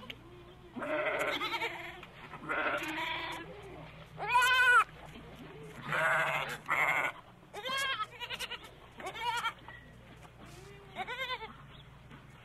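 Young goat kid bleating again and again: a run of about eight high calls, some harsh and some clear and arching in pitch, the loudest about four seconds in.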